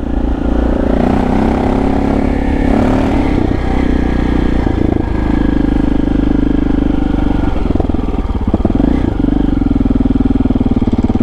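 KTM 640 Adventure R's single-cylinder engine running under way at low speed, its note rising and dipping over the first few seconds and then holding fairly steady. A few short knocks come from the bike in the middle.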